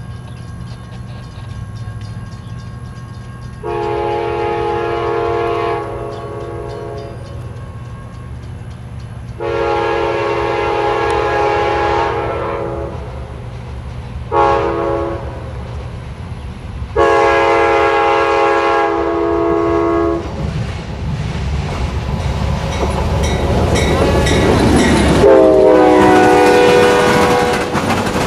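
Amtrak passenger train's multi-chime locomotive horn sounding the grade-crossing signal, long, long, short, long, as it approaches. Then the train goes by with a loud rumble of wheels on the rails, and a last horn chord drops in pitch as the locomotive passes.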